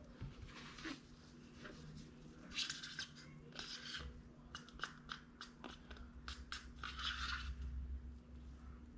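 Knife spreading garlic spread over the cut face of an Italian loaf: a run of short scrapes and crackles of the blade on the crusty bread.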